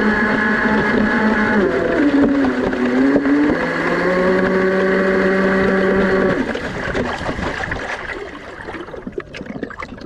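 Scratch-built RC speedboat's motor running fast with a steady whine over rushing water; the pitch dips about two seconds in and climbs back a second later. About six seconds in the motor is throttled back and fades, leaving water splashing against the hull as the boat slows.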